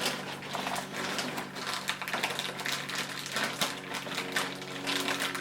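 Plastic packaging crinkling and tearing as packages are opened by hand: a dense, irregular run of crackles.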